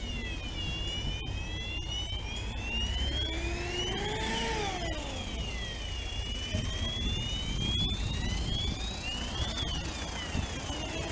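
Emergency-vehicle siren wailing, slowly rising and falling about every five seconds over a low engine rumble. A second, lower siren tone rises and falls once about four seconds in.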